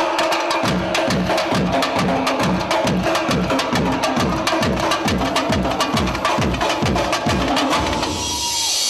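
Tecno samba music: an electronic beat with fast, regular deep bass-drum strokes under quick, even ticking percussion. Near the end the bass drops out for a moment.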